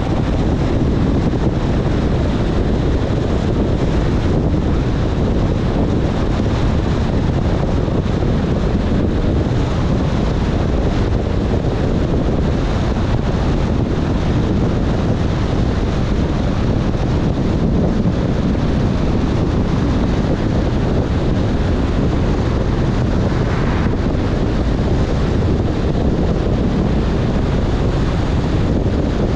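A car driving in heavy rain: a loud, steady rush of wet-road tyre noise, wind and engine.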